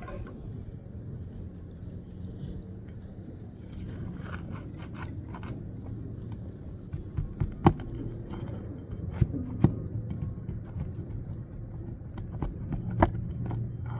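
Roofing nails being pried out of an asphalt shingle and the shingle worked loose: scraping and rustling, with a few sharp metal clicks.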